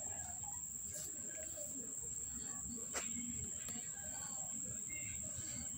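Steady high-pitched insect trill that runs on unbroken, with a single sharp click about three seconds in.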